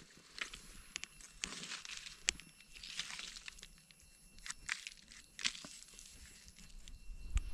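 Knife scraping and trimming the soil off freshly picked Amanita mushroom buttons in gloved hands, with dry leaf litter rustling: a string of short, irregular scrapes and crackles.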